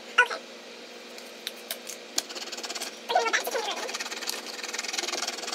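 Wax crayon scribbled fast back and forth on paper, a quick scratchy rhythm that starts about two seconds in, after a few light taps.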